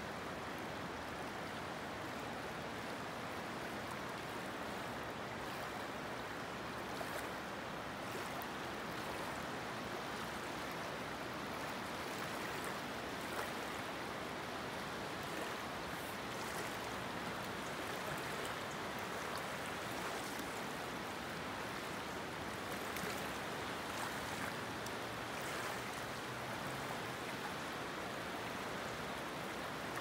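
A fast-flowing river rushing and rippling past: a steady, even wash of water noise.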